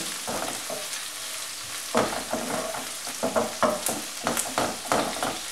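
Sliced onions and garlic sizzling in hot vegetable oil in a skillet, a steady frying hiss, with a wooden spoon stirring and scraping against the pan in irregular strokes that come more often from about two seconds in.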